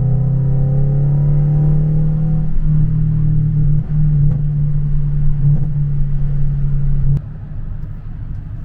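Scion FR-S's 2.0-litre flat-four engine running with a loud, steady low exhaust drone, freshly flashed with a stage 2 pops tune. A higher tone falls away over the first couple of seconds. About seven seconds in there is a sharp click and the sound drops suddenly to a quieter level.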